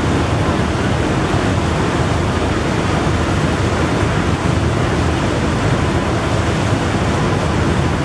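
Steady rushing noise of wind and choppy water, heaviest in the low range, with no distinct engine note standing out.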